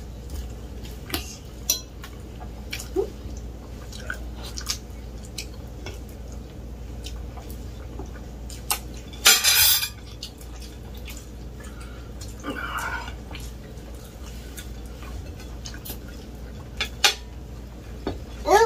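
Occasional clinks and scrapes of a fork and food on dinner plates during a meal, with one louder half-second scrape about nine seconds in.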